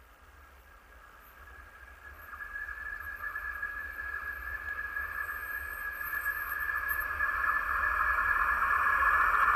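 An East German diesel locomotive hauling a passenger train approaches, growing steadily louder, with a steady high-pitched whine or squeal.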